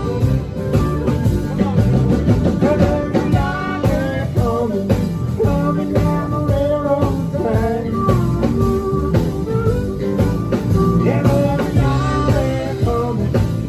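A live country band playing: drums and bass keep a steady beat under a lead melody that bends in pitch.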